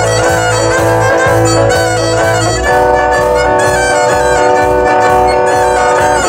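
Live band music, a violin carrying the melody over guitars and drums, with a steady pulsing bass beat.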